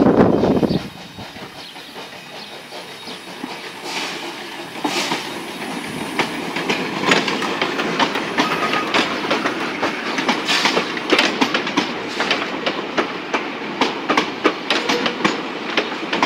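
Steam train passing close by: a brief loud low rumble at the very start, then the train's running sound builds as the carriages roll past. The carriage wheels click and clack over the rail joints, with the clicks coming thick and regular in the later part.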